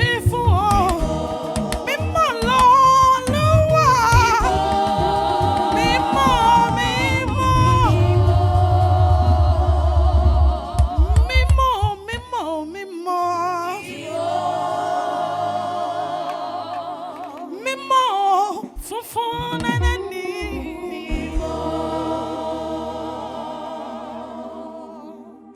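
Gospel praise music: several voices singing with vibrato over a band with bass and a beat. About halfway through the bass and beat drop out, leaving the voices and sustained chords, which fade near the end.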